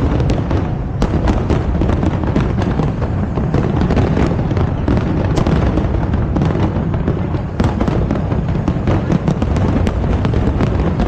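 Aerial fireworks display going off in a dense, continuous barrage: many sharp cracks and crackles over a constant low rumble of bursts.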